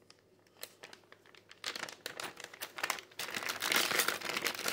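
Clear plastic parts bag holding a metal backing plate crinkling as it is opened and handled. It starts with a few faint ticks, and the crinkling gets louder about halfway through.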